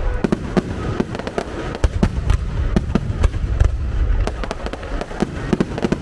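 Starmine fireworks barrage: a rapid volley of shell bursts and crackling reports, several sharp cracks a second over a continuous deep booming rumble.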